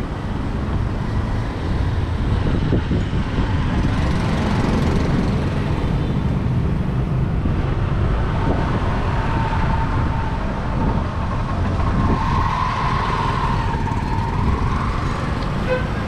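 Steady low rumble of street traffic, with a faint steady whine joining about halfway through.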